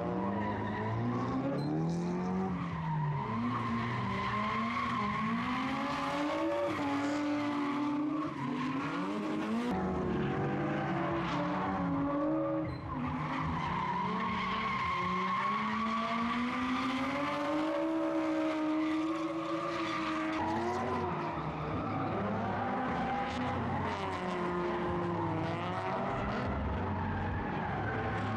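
Drift cars' engines revving up and down, with tyres screeching as the cars slide; the engine pitch climbs and falls with each throttle change. The sound changes abruptly about ten and twenty seconds in.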